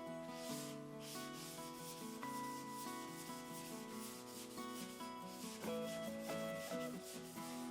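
Hand block sanding of 2K high-build primer with 600-grit paper on a soft 4-inch block, back-and-forth hissing strokes about twice a second that rub off a dry guide coat. Acoustic guitar background music plays over it.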